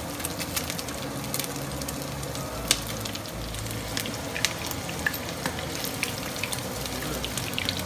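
Panko-breaded chicken strips sizzling in shallow oil in a nonstick frying pan: a steady hiss with constant crackling spatter and a few sharper pops.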